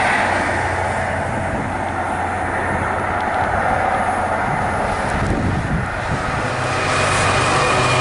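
The noise of a just-passed train fades over the first second or two. Then a GB Railfreight Class 66 diesel-electric locomotive approaches hauling a container train, its two-stroke diesel engine growing louder near the end as it draws level.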